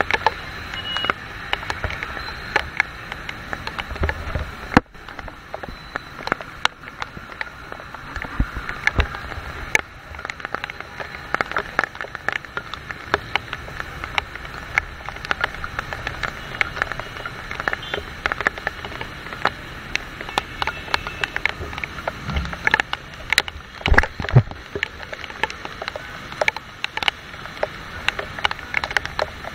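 Heavy rain, with many sharp drop taps close to the microphone, over the steady noise of traffic on a wet road. A few low thumps come about three quarters of the way through.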